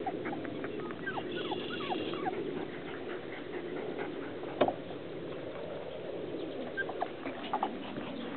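Goldendoodle puppies whimpering: many short, high whines that fall in pitch, most of them in the first couple of seconds and a few more near the end. There is one sharp click about halfway through.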